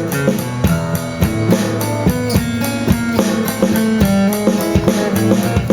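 Live blues band playing an instrumental passage between sung lines: electric guitar and bass over a drum kit keeping a steady beat.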